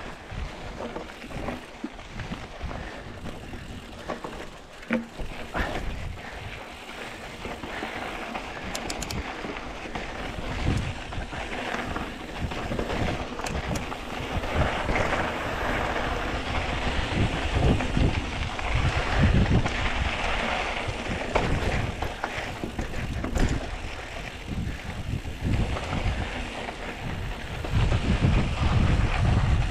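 Wind buffeting the microphone over the rattle and tyre noise of a mountain bike ridden along a dirt trail. The gusts grow heavier over the second half.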